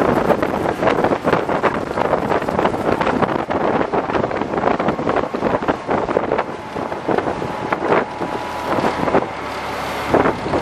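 Gusty wind buffeting the microphone on a small fishing boat under way, over the steady run of the boat's engine and water rushing past the hull.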